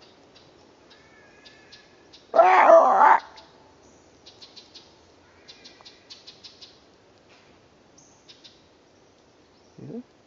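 A loud, drawn-out wavering cry lasting about a second, about two seconds in, over small forest birds chirping and twittering on and off. A short low sound comes near the end.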